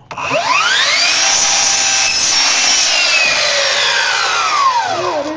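Bosch 18V cordless miter saw motor spinning up, running at speed, then winding down: a whine that rises over the first second and falls away over the last two as the blade slows.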